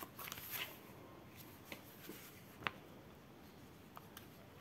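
Pages of a paper instruction booklet being flipped through by hand. There is a soft rustle at the start, then a few faint, sparse ticks as the pages turn.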